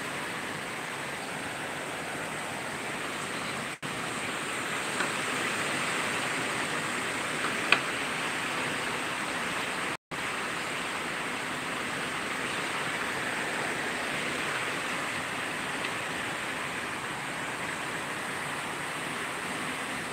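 Heavy tropical-storm rain pouring down in a steady, even hiss. The sound drops out for a split second twice, and there is one sharp tick a little before the middle.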